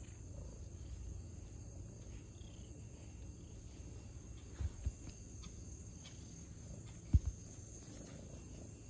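Colorpoint cat purring as it is stroked, a low steady rumble close to the microphone, with two pairs of dull thumps about halfway through and near the end.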